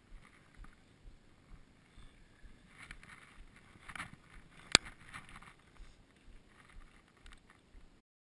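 Faint wind noise and light rustling on a GoPro action camera's microphone, with a single sharp click a little under five seconds in.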